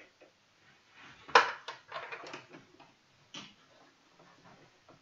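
Cotton fabric rustling as it is handled and slid into place on a sewing machine's bed, with a single sharp knock about a second and a half in and a few lighter clicks after it.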